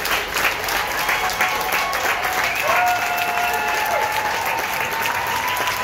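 A crowd clapping steadily, with a held tone sounding over the clapping for about a second and a half midway.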